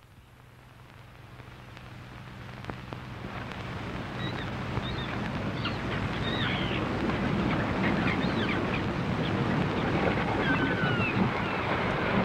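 Sea surf and wind ambience fading in from near silence over the first few seconds, with short, scattered bird cries over it from about four seconds in.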